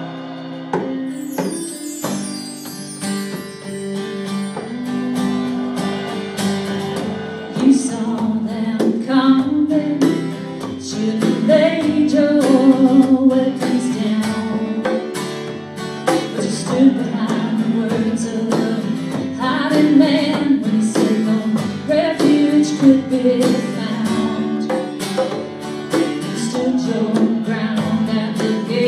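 Live acoustic band music: strummed acoustic guitar and a second plucked string instrument over hand percussion, with a woman singing the melody.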